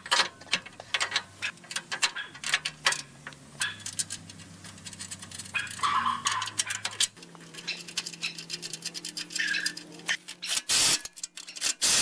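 Metal clinks and clanks as a steel chain-anchor bracket and its bolts are handled and fitted against a sawmill's steel bed. Near the end a cordless impact wrench hammers a bolt tight in a short loud burst, then briefly again.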